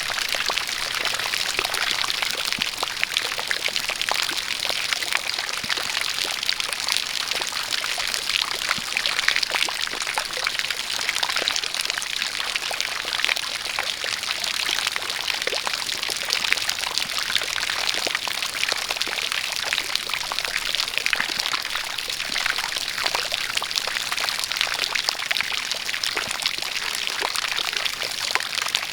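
A jet of water pouring and splashing steadily, mixed with rain: a dense, unbroken patter of drops over a constant hiss.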